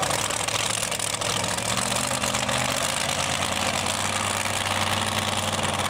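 Modified pulling tractor with several engines idling steadily, hitched to the sled at the start line.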